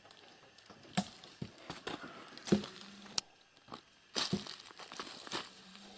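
Footsteps crunching and rustling through dry fallen leaves and grass, with a few sharp knocks in between.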